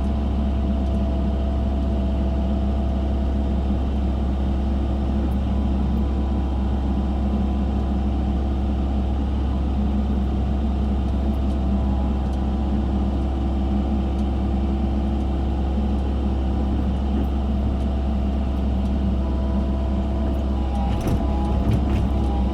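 Excavator's diesel engine running steadily at an even pitch while digging, with a short clatter near the end.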